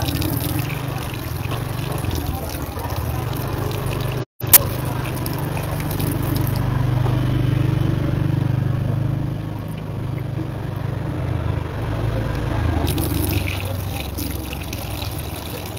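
Water running or pouring, under a steady low rumble from the phone being handled, with one sharp click about four and a half seconds in.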